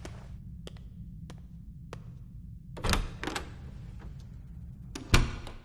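Soundtrack sound effects: a low, steady ominous drone with four sharp clicks at even intervals, then a heavy impact about three seconds in and a louder one near the end.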